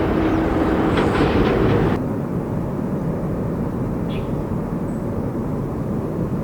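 Jet airliner engines rumbling on a Boeing 777's departure. The sound cuts off abruptly about two seconds in to a quieter, steady rumble, with a faint high chirp or two later on.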